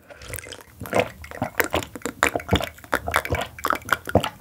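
Close-miked wet eating sounds of seaweed-and-oyster noodle soup (maesaengi gul kalguksu): a dense run of quick, sticky clicks and squelches.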